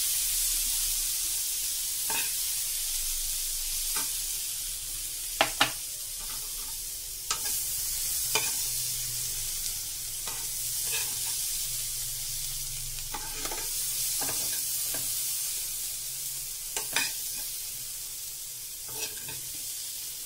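Sweet corn kernels sizzling in a frying pan, with a steel spoon scraping and clicking against the pan at uneven intervals as the corn is stirred and scooped out.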